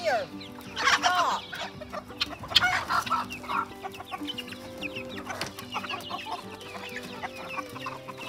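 A flock of chickens clucking, with a few louder calls in the first three seconds and a steady run of short, quieter clucks after that.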